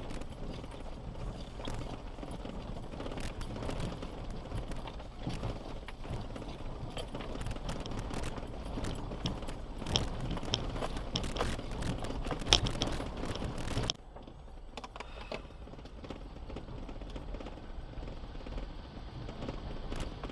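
Four-wheel-drive vehicle driving over a rough unpaved track, with a steady rumble and many loose knocks and rattles. About two-thirds of the way through the sound changes abruptly to a quieter, duller rumble.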